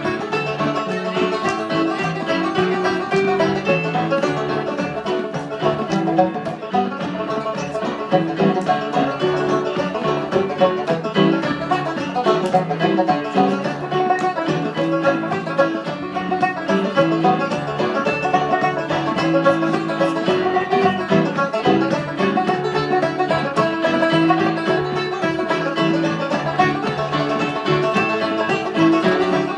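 Two banjos picking a tune together over electric piano accompaniment, in a continuous run of rapid plucked notes.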